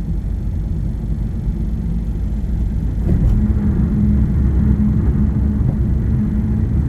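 Steady low road rumble and engine noise of a car driving, heard from inside the cabin. It gets a little louder about three seconds in, with a steady hum added.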